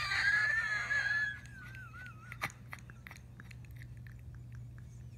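A high-pitched, wheezing laugh, a squealing note that wavers and trails off about two seconds in. After it come faint scattered clicks.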